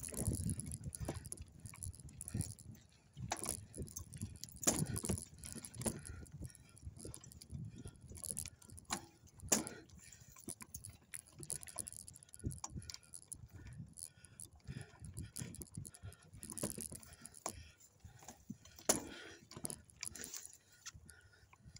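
Loose metal parts on a bike rattling and clinking irregularly, with low thumps and rumble, as the bike jolts over rough ground.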